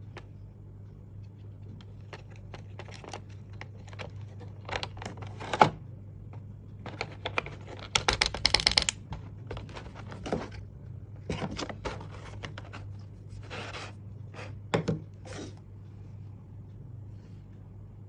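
Hands unpacking a box of wireless earbuds: scattered clicks, taps and short rustles of card and plastic, with a quick rattling run of clicks about eight seconds in, over a steady low hum.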